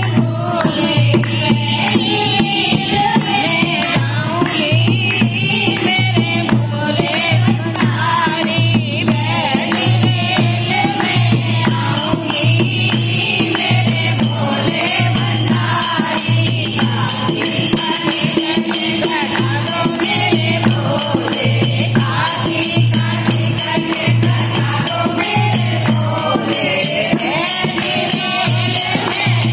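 Group of women singing a Hindi devotional bhajan to Shiva, a girl's voice leading through a microphone and the others joining in, with hand clapping keeping time over a steady low beat about once a second.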